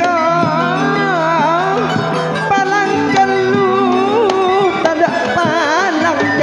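Madurese ketoprak gending music: a wavering, ornamented melody line over sustained low notes, playing steadily.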